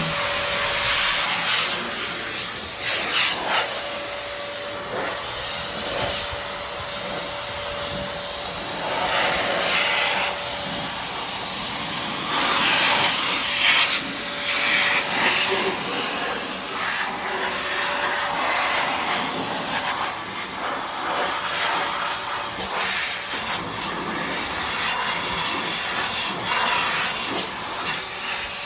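An electric motor-driven machine runs steadily with a constant whine and a rushing hiss that swells and fades several times.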